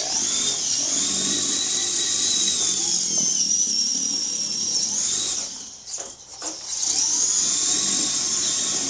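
VEX robot's electric drive motors and gearboxes whining as its six-wheel drivetrain, two omni wheels and four grip wheels, drives across a hardwood floor, the high pitch rising and falling with speed. The motors stop for about a second near the middle, then start again.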